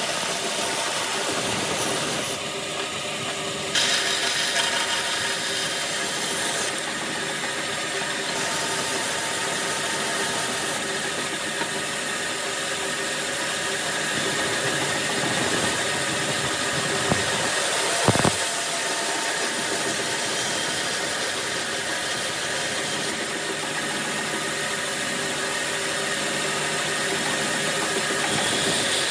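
Band saw running steadily with its blade cutting through a small hardwood block, with one sharp knock about two-thirds of the way through.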